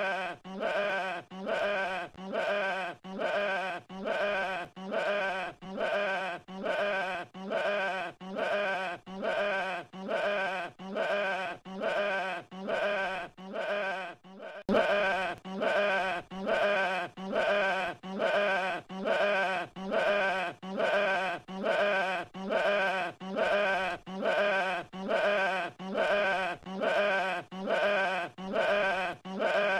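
A sheep's bleat repeated over and over in a loop, about one wavering bleat a second. The loop breaks briefly about halfway through and carries on a little louder.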